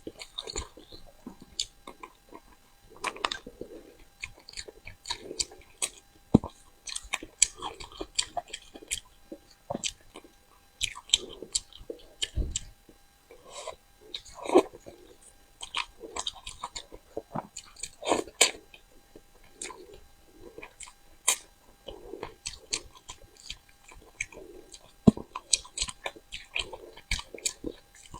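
Close-up chewing of cooked crucian carp: irregular wet smacks and sharp clicks from the mouth, several a second.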